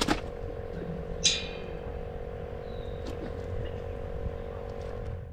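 A steady motor hum, with a sharp click at the start and a brief high rattle about a second in.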